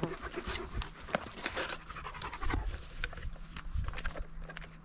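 A dog panting, with a few light clicks and rattles mixed in.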